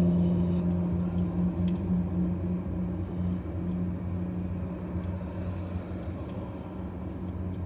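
Thunder rumbling after a lightning strike, slowly dying away, over a steady low hum.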